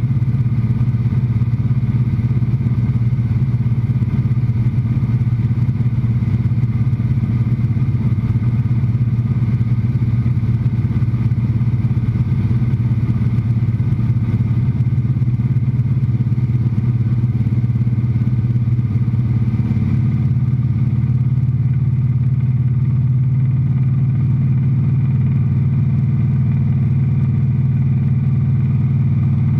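Light aircraft's piston engine and propeller running steadily in cruise, heard from inside the cockpit as a loud, even drone; its note shifts slightly about two-thirds of the way through.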